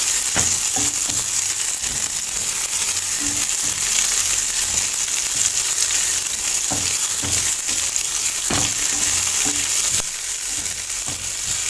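Chopped red onion and garlic sizzling steadily in hot cooking oil in a stainless steel frying pan. A slotted spatula stirs them, scraping and knocking against the pan a few times.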